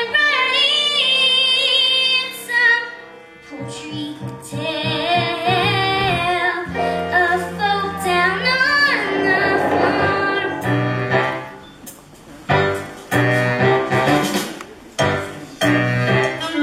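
A song from a stage musical: a high voice singing a melody over instrumental accompaniment with sustained bass notes.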